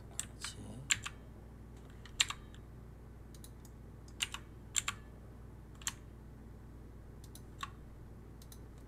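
Scattered clicks of a computer keyboard and mouse, single and in quick pairs, with pauses of a second or more between them, over a steady low hum.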